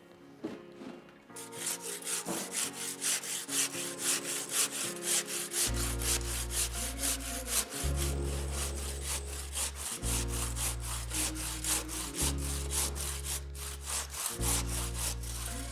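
Handsaw sawing through a stone wall in quick, even back-and-forth strokes, about four a second, starting about a second in.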